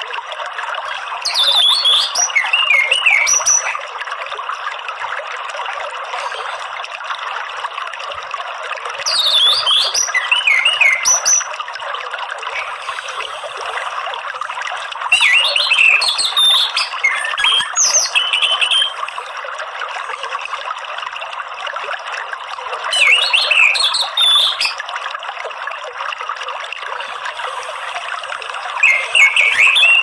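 Orange-headed thrush singing in five short bouts of quick, high sliding notes, each a couple of seconds long, over a steady trickle of running water.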